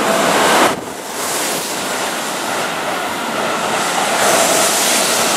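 Keihan 3000-series electric train cars passing close by at a platform: a loud, steady rush of air and wheel-on-rail noise, with a brief dip about three-quarters of a second in.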